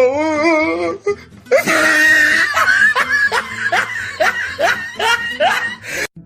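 Meme laughter sound effect: a wavering held note, then a string of repeated bursts of laughter over music.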